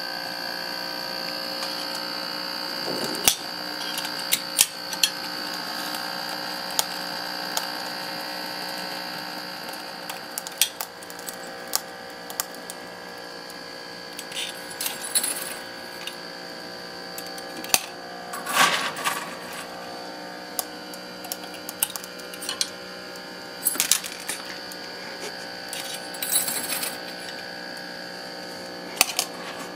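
Steady electric hum of a small draught fan sitting on the chimney of a coal-fired gauge 1 live-steam locomotive, drawing the fire while it is being lit. Over it come sharp clicks and a few short rattles as small lumps of coal are handled and put into the firebox.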